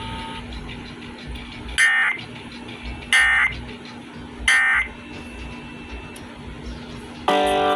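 Three short, buzzy bursts of Emergency Alert System SAME data tones about 1.3 seconds apart, over a low steady hum: the end-of-message signal that closes the broadcast alert. Music comes back on near the end.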